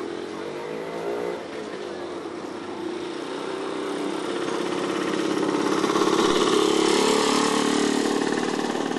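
Two-stroke IWL motor scooter engines running; one scooter rides close past, its engine note growing louder to a peak about two-thirds of the way through, then fading.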